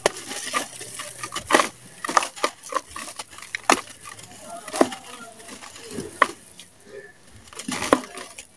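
Lumps of dry sand crushed and crumbled by hand over a basin of muddy water: gritty crunches and the splash and patter of falling pieces, coming irregularly many times.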